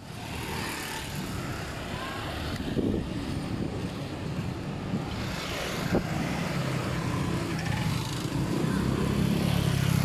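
Street ambience with road traffic running by; a low engine rumble grows louder near the end.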